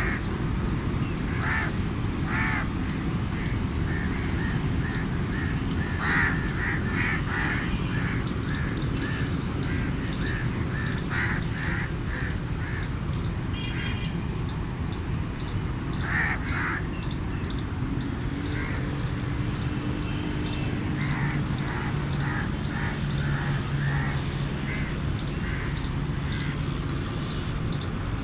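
Crows cawing repeatedly, short harsh calls coming every second or so and bunching most thickly about a quarter and halfway through, over a steady low rumble.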